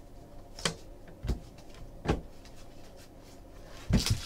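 Hockey trading cards being flicked through one at a time by hand: three short, soft card snaps spaced under a second apart, then a louder double knock near the end as the hands come down on the table.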